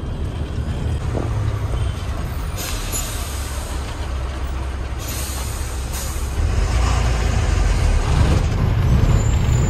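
Heavy goods truck's diesel engine running, heard from inside the cab, with hisses of released brake air about two and a half and five seconds in. The engine grows louder about six and a half seconds in.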